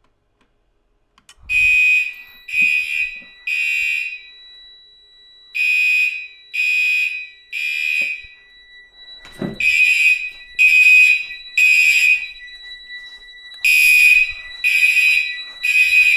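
Fire alarm system sounding the temporal-three evacuation pattern: four groups of three short beeps, starting about a second and a half in. This follows the test activation of a System Sensor 2400 smoke detector. A steady high tone sounds alongside from about four seconds in.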